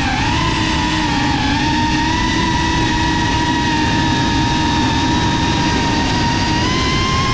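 Brushless motors and ducted propellers of a GEPRC CineLog35 cinewhoop quadcopter, recorded from on board, holding a steady high hum over a rush of propeller wash. The pitch rises slightly near the end as the throttle changes.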